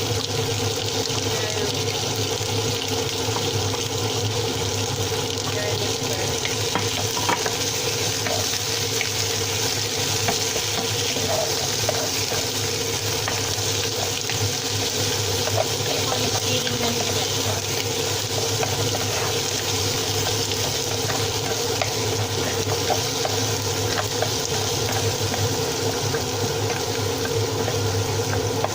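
Oxtail pieces sizzling as they fry in a pot of melted sugar, with scattered light clicks of stirring.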